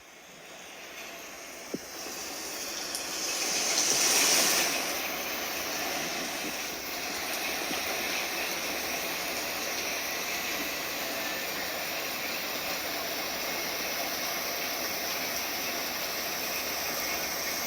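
Heavy rain falling steadily, an even hiss that fades in at the start and swells louder about four seconds in, with one sharp click near two seconds.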